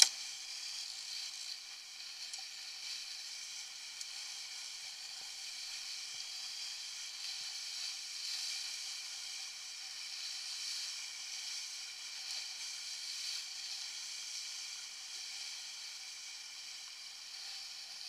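Steady hiss of water rushing and spraying along a Topper Buzz sailing dinghy's hull as it sails fast, planing in strong wind. A single sharp knock right at the start.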